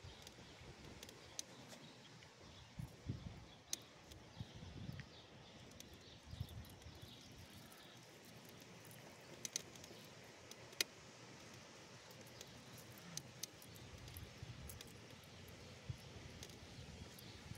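Quiet background with faint footsteps and a few scattered small clicks as a small dog is walked on a leash over pavement and gravel.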